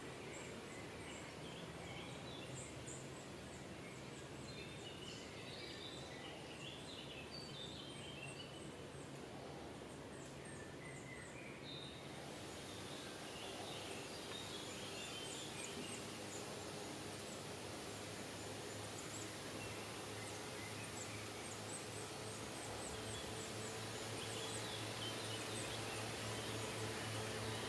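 Woodland ambience: small birds chirping and calling on and off, over a steady low hum that grows a little louder near the end.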